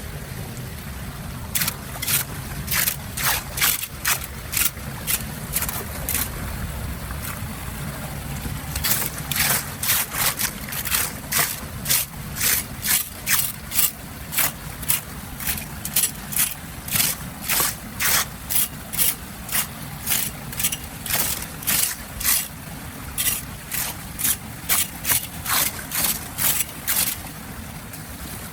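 Water running with a steady low rush, while short sharp strokes repeat about twice a second, the loudest sound here; they start about a second and a half in and stop near the end.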